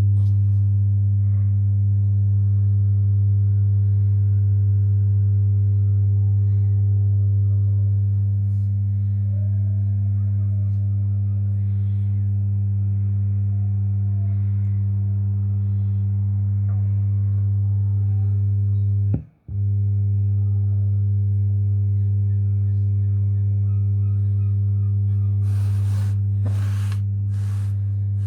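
Mackie CR4 multimedia monitor speakers giving a loud, steady, low buzzing hum. This is the fault the owner wants fixed. The hum drops out for an instant about two-thirds of the way through, then comes back, and a few crackles come near the end.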